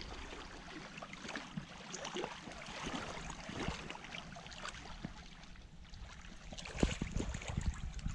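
A hooked carp splashing at the water's surface as it is drawn over a landing net in the shallows, in irregular bursts that are loudest near the end.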